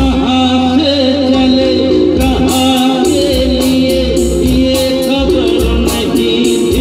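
Live band music through a stage PA: a male vocalist sings a wavering melody into a microphone over keyboards, electric guitars and a steady percussion beat.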